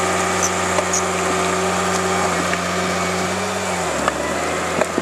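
Komatsu crawler bulldozer's diesel engine running steadily, its pitch sagging about four seconds in as it lugs down, with a few sharp metallic clicks.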